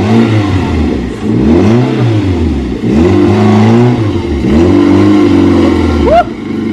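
Car engine revving up and down repeatedly, just bump-started after its battery went flat. There is a short rising squeal near the end.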